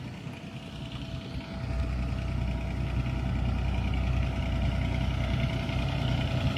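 Kubota mini skid steer engine idling, a steady low hum that grows louder about a second and a half in.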